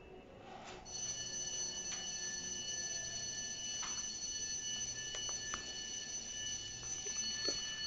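Store alarm starting about a second in and sounding as a steady, high-pitched electronic tone made of several pitches, with a few faint knocks.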